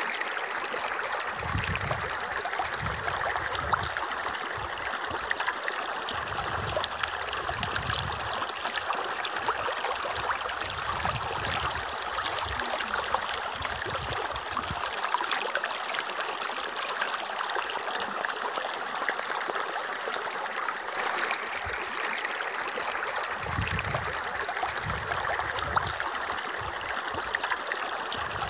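A thin stream of water pouring from a small tube, splashing steadily onto plastic toy animals and into a shallow puddle on sand, with irregular low rumbles now and then.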